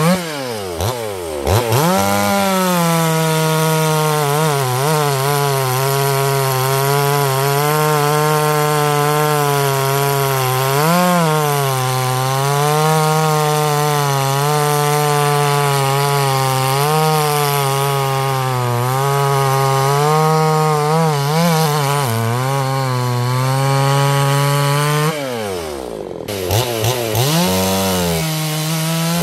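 Two-stroke chainsaw running at full throttle through a cut, its engine pitch held steady under load with small wavers as the chain bites. About a second in and again near the end the revs drop sharply and climb back up.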